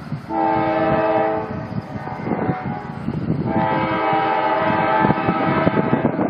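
Diesel freight locomotive's air horn sounding two blasts: a short one about a second long, then a longer one that starts about halfway through and holds for nearly three seconds, over a low rumble.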